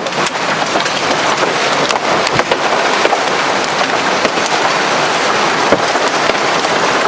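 Large hail, about an inch across, pelting a car: a dense, steady clatter of many sharp hits on the body and glass.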